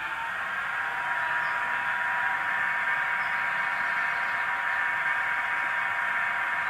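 Recorded class 33 diesel locomotive sound (Sulzer eight-cylinder engine) played by a DCC sound decoder through the model's small speaker, the engine idling steadily with a constant hum and hiss and almost no bass.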